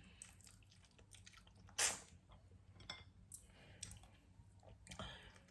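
Faint mouth sounds of a person gnawing and chewing braised chicken feet: scattered wet smacks and small clicks, with one louder smack about two seconds in.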